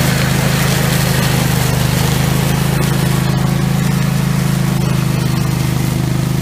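OREC Rabbit Mower RMK150 ride-on brush mower's engine running steadily under load as it mows through grass and dry leaves.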